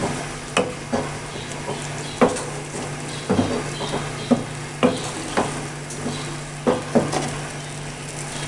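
A wooden spoon stirring chickpeas and chicken in a sizzling frying pan, with irregular knocks and scrapes of the spoon against the pan.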